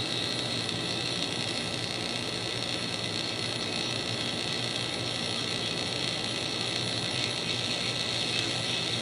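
Steady hiss and static with a low hum from a crystal radio kit played through a small audio amplifier into a loudspeaker, tuned to a faint AM station.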